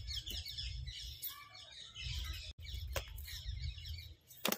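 Birds chirping: many quick, falling chirps overlapping one another over a low steady rumble, with a sharp click about three seconds in and another near the end.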